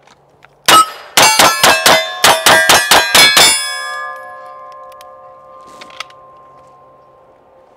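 A fast string of about ten pistol shots, roughly three to four a second, each one ringing a steel target; the ringing of the steel then dies away over a few seconds.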